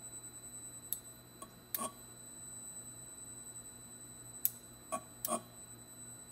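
AC motor driven by a KEB Combivert inverter on test, giving off a steady high-pitched whine over a low hum. Two quick groups of three sharp clicks come about a second in and again past the middle.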